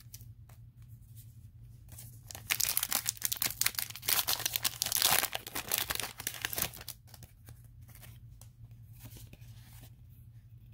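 Foil booster-pack wrapper of Yu-Gi-Oh cards being torn open and crinkled, a loud crackling tear lasting about four seconds that starts a couple of seconds in; quieter clicks of cards being handled before and after.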